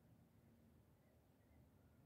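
Near silence: faint outdoor background with nothing distinct sounding.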